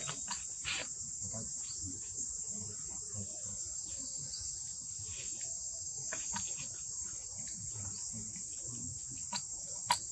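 Steady, high-pitched insect chorus. Scattered soft clicks and rustles sound over it, with a sharper click near the end.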